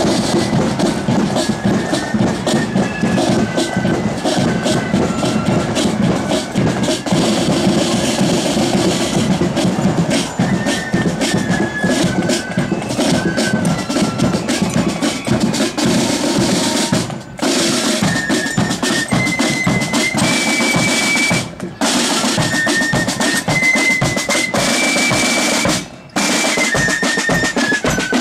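Marching flute band playing a tune: flutes carry a high melody over rattling side drums, drum rolls and a steady bass drum beat. The sound breaks off for a moment three times in the second half.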